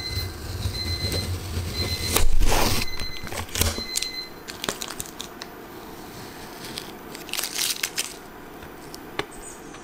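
Paper label being peeled off a clear plastic storage box: sticky tearing and crinkling, loudest about two seconds in, then scattered clicks and short rustles as the label comes away and the plastic box is handled.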